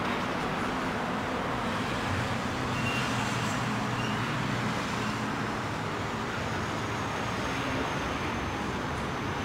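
Steady road traffic noise from nearby vehicles, an even rumble with a low engine hum.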